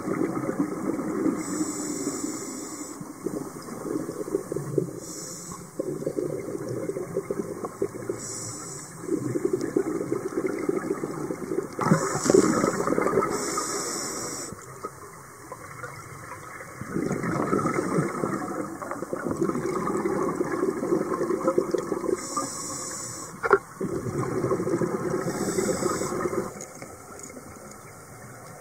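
Scuba diver breathing through a regulator underwater: short hissing inhalations alternate with longer bursts of exhaled bubbles, a few seconds each, repeating through the breaths. One sharp click is heard about 23 seconds in.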